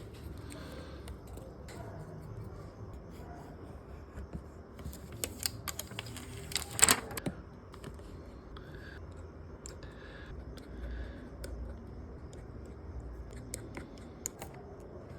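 Small scattered clicks and taps of repair tools and phone parts being handled while an iPhone 12 Pro's screen is replaced, with a run of clicks and one sharp click about seven seconds in, over a low steady hum.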